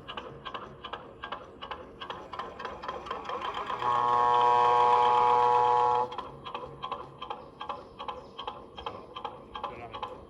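Sound module of a radio-controlled model trawler playing a rapid, regular diesel-engine chugging through a small speaker, with a steady ship's horn blast of about two seconds sounding over it about four seconds in.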